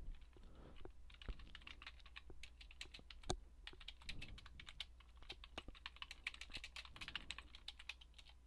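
Faint typing on a computer keyboard: a run of quick, irregular keystrokes with short pauses, one of them sharper a little over three seconds in.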